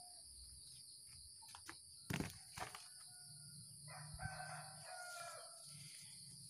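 A rooster crowing faintly, one drawn-out crow about four seconds in that lasts under two seconds. A sharp knock about two seconds in is the loudest sound.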